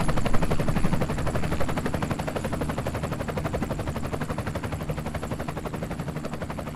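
Helicopter rotor beating rapidly and evenly over a steady low drone, growing gradually fainter as it moves away.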